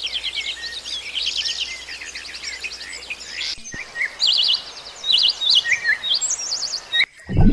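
Small songbirds singing, a string of quick high-pitched chirps and trills. After a brief break about halfway through, the calls change to a different pattern.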